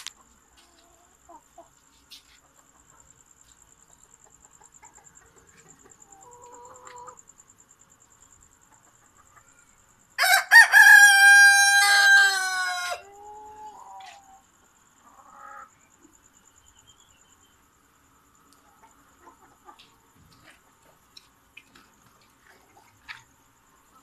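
Black bantam rooster crowing once, a single crow of about three seconds that starts about ten seconds in and drops in pitch at its close. Soft, faint clucking from the chickens comes before and after it.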